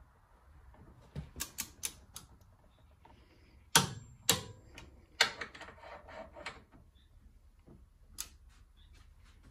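Click-type torque wrench ratcheting in short runs of sharp clicks while camber plate bolts are tightened to 20 N·m, with two louder clicks about four seconds in.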